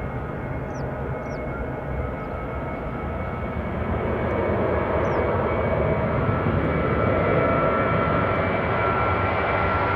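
Jet engines of a Boeing 737-800, CFM56 turbofans, running at takeoff power, a steady rumble with a whine, growing louder about four seconds in.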